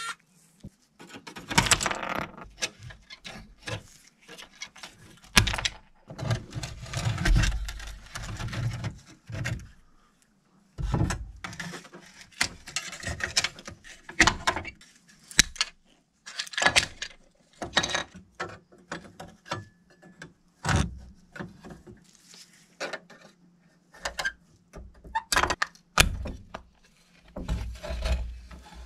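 A rusty diecast model car being pried apart by hand: irregular clicks, knocks and scrapes of small metal and plastic parts against each other and the wooden tabletop, with a couple of short pauses.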